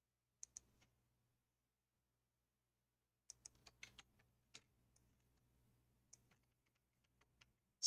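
Faint, scattered clicks of a computer keyboard and mouse against near silence: a couple near the start, a quick cluster of about eight a little past three seconds in, and a couple more near the end.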